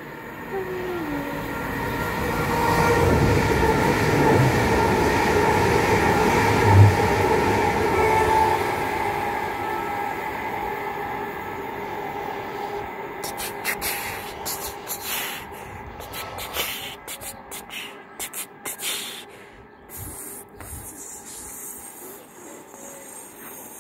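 Electric passenger trains running on the line below: a loud rumble with a steady high whine that builds to a peak about seven seconds in and then fades away. After it comes a run of sharp clicks and knocks as another train draws near.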